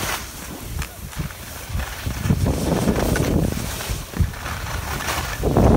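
Wind noise gusting on the microphone of a camera carried by a skier moving downhill, with the hiss of skis sliding over packed snow.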